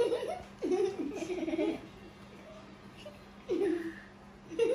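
Young girls giggling and laughing in a few short bursts.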